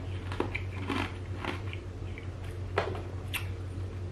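A person's mouth making scattered soft clicks and smacks close to the microphone, over a low steady hum.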